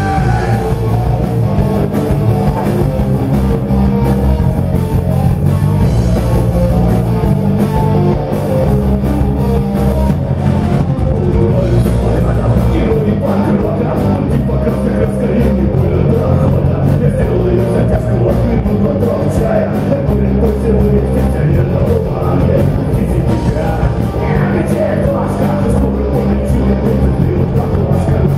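Rock band playing loudly, with electric guitar, bass and a drum kit keeping a fast, steady beat.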